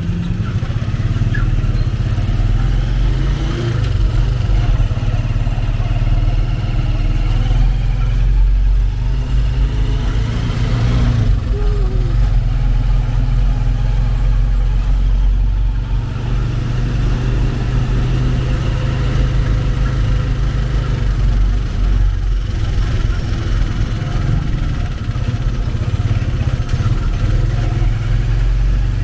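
Motorcycle engine of a tricycle (motorcycle with sidecar) running steadily at low road speed, heard from inside the sidecar as a continuous low rumble.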